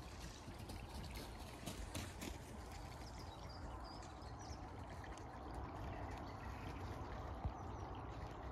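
Steady rushing outdoor noise with a low rumble. A few faint clicks come in the first couple of seconds, and faint high chirps follow a little later.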